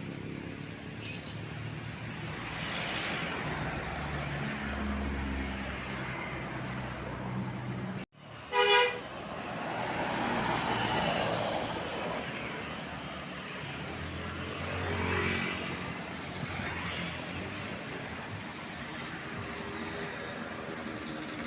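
Roadside traffic with large vehicles passing, their engines running low. About eight and a half seconds in, a tour bus horn gives one short loud blast of several tones at once, the loudest sound, then the traffic noise carries on with more vehicles going by.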